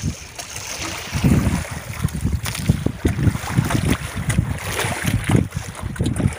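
Wind buffeting the microphone in uneven gusts, over the wash of water around a small boat.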